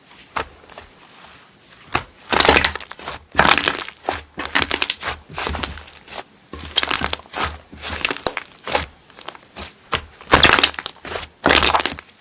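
Slime being squeezed and pressed by hand, giving bursts of dense crackling with many small pops, in bouts about a second long.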